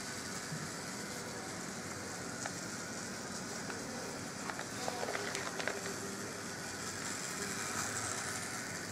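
HO-scale Rivarossi D245 model diesel locomotive running round a track oval: its small electric motor hums steadily and its wheels run on the rails, with a few quick clicks about five seconds in.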